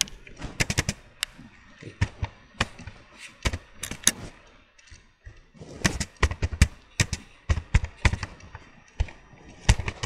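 Computer keyboard being typed on: irregular runs of sharp keystroke clicks, with a pause of about a second midway.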